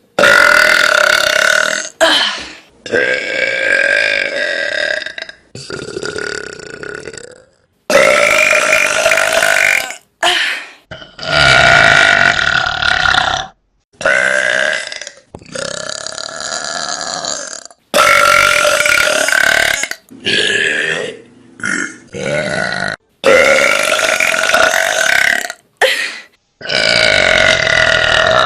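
A string of about a dozen long, loud belches from young women, cut one after another with abrupt breaks between them, each burp held at a fairly steady pitch.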